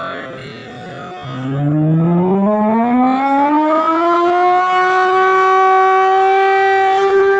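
A siren winding up: a loud tone that starts low about a second in, climbs steadily in pitch for about three seconds, then holds one steady wail.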